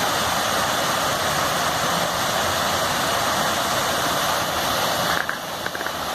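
Water rushing hard after heavy rain, a steady loud rush that eases somewhat about five seconds in.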